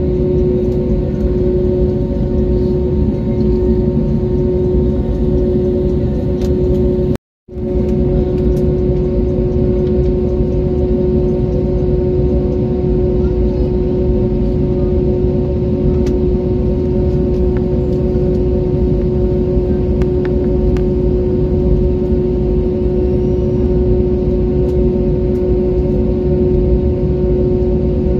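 Airbus A321neo's turbofan engines at idle, heard inside the cabin as a steady drone with a constant hum while the airliner starts to taxi. The sound cuts out for a moment about seven seconds in.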